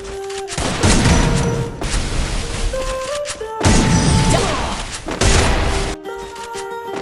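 Thunder claps and rumbles, three loud strikes (about a second in, past the middle, and a little after five seconds), each dying away slowly. Under them runs background music with held notes stepping up and down.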